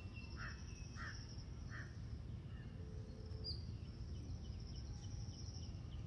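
Faint outdoor ambience with birds calling: three short calls in the first two seconds, a brief high chirp about midway, then a run of quick repeated high notes in the second half, over a steady high hiss and a low rumble.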